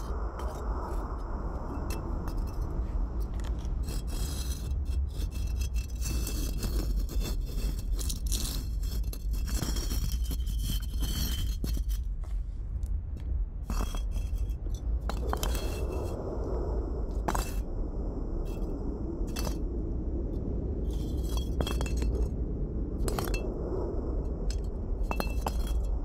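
Many sharp clinks and scrapes over a steady low rumble, coming thick and fast in the first half and more spread out later.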